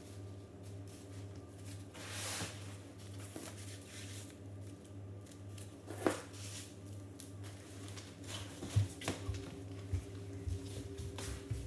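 Nylon fabric of a packed tent's carry bag rustling as it is handled, with a sharp click about halfway through and soft knocks near the end. A steady low hum sits underneath.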